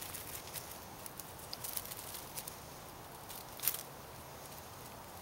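Scattered light rustling and small clicks of hands and gear moving in dry brush, with one sharper click a little past the middle.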